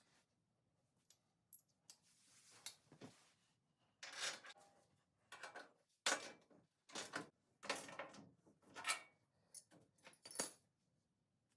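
Small metal hardware and hand tools clinking and rattling in a string of short, separate clatters: washers, nuts and bolts being handled while a body mount bushing is refitted.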